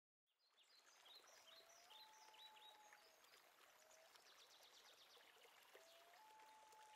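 Faint outdoor ambience: small birds chirping now and then over a soft hiss, with a faint held tone that steps up and down in pitch a few times.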